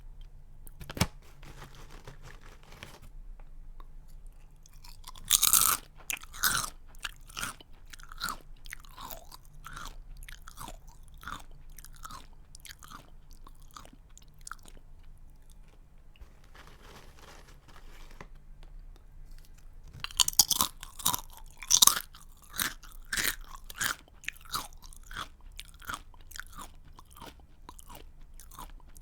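A person bites into a crunchy snack and chews it with sharp crunches, twice: a loud bite about five seconds in and another about twenty seconds in, each followed by a run of crunching chews that grows fainter.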